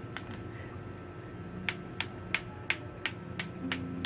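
3D-printed plastic clacker balls (lato-lato), printed with infill rather than solid, knocking together in a steady rhythm of about three sharp clacks a second. The clacking breaks off just after the start and picks up again after about a second and a half.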